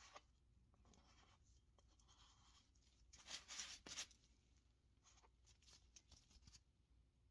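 Plastic body-filler spreader scraping filler across the edge of a pressed-steel toy truck part in a few short strokes, the loudest about three seconds in, followed by light clicks and taps as the part is handled.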